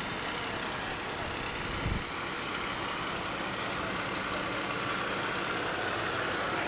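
Iveco Magirus fire engine's diesel engine running steadily, with a brief thump about two seconds in.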